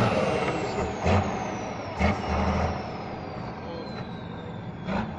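Trial truck's diesel engine coming off the throttle and dropping to a lower, quieter run, with a high whine falling slowly in pitch. Short bursts of throttle come about one second and two seconds in and again near the end.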